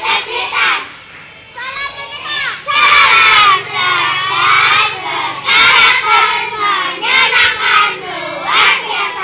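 A group of schoolchildren chanting and shouting together in unison, in loud phrases of one to two seconds with short breaks between them.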